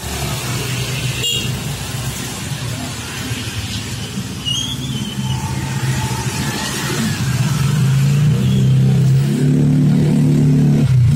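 Motorcycle engine running close by, a steady hum that grows louder over the last few seconds, over a steady hiss.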